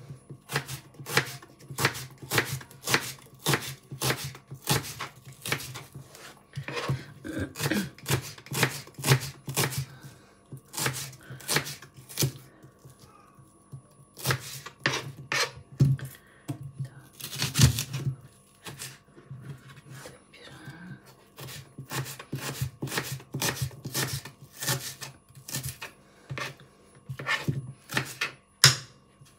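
Kitchen knife slicing onions on a plastic cutting board: sharp chopping taps, about two a second, with a few short pauses.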